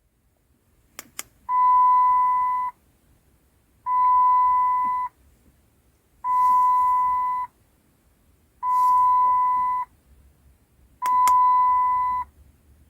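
A couple of quick clicks, then a steady electronic beep sounding five times at an even pace, each tone held a little over a second with a gap of about the same length between.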